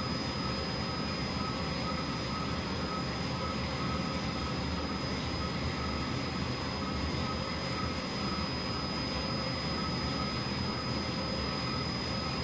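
Commercial drum coffee roaster running mid-roast, a steady whir of drum and exhaust blower with a faint steady high whine. The batch is in the browning stage, short of first crack, with the airflow turned up.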